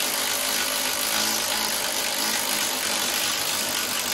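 A power tool running steadily on the mower's floor-pan fastener, a dense, even noise that cuts off just after the end.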